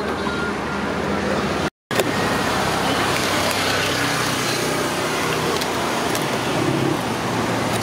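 Steady outdoor background noise like road traffic, with a few faint clicks. It drops out for a moment about two seconds in.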